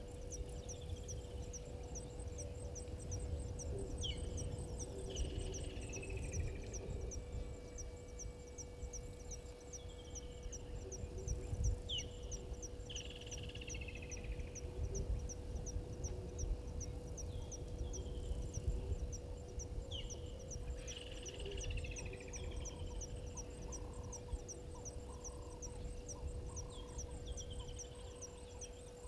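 Outdoor bush ambience: a bird repeating a short falling call about every eight seconds over an insect ticking steadily, about four or five ticks a second, with a steady hum and a low rumble underneath.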